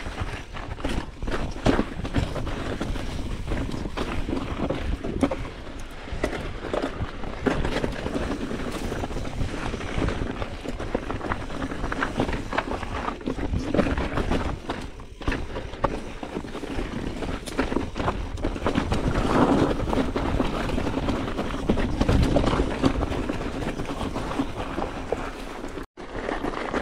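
Mountain bike riding over a rough, rocky trail: continuous rattle and clatter of the bike, with frequent knocks as the wheels hit rocks, tyre noise, and wind rumble on the action camera's microphone. The sound drops out for a split second near the end.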